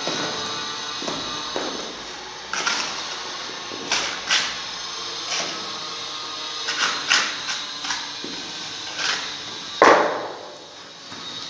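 A trowel spreading and scraping cement mortar around a metal wall box: irregular scraping and tapping strokes, with one sharper knock near the end.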